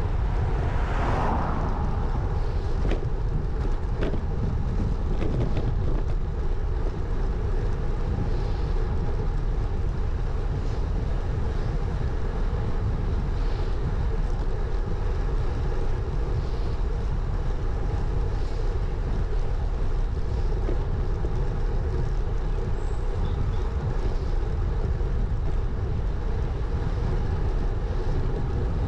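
A steady rush of wind and road noise on a GoPro Hero 9's microphone, out-front mounted on a road bike that is riding along. An oncoming car passes about a second in, rising and fading.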